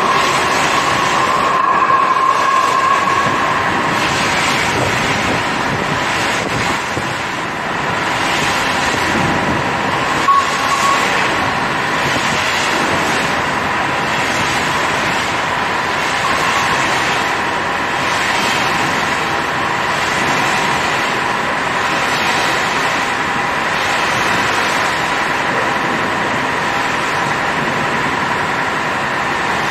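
Ultra-high-pressure water jet of more than 750 bar blasting marine growth off a steel ship's hull: a loud, steady hiss and rush with a constant high whine running under it.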